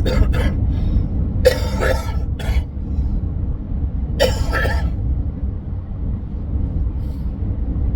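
A man coughs and clears his throat in short bursts, about a second and a half and again about four seconds in, over a steady low vehicle rumble.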